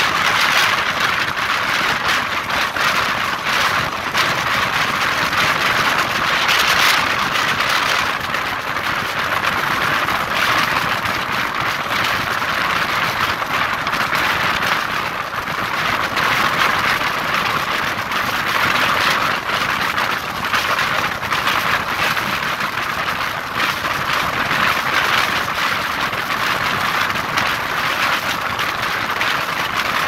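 Passenger train running at speed, heard from an open coach window: a steady, loud rush of wheels on the rails mixed with passing air.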